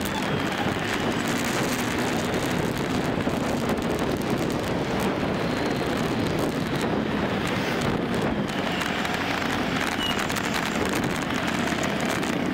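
Wind rushing over the microphone of a moving motorbike, over the steady running of motorbike and scooter engines in dense street traffic.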